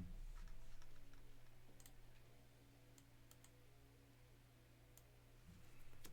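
Near silence with a few faint, scattered clicks of trading cards being handled and flipped through a stack, over a low steady hum.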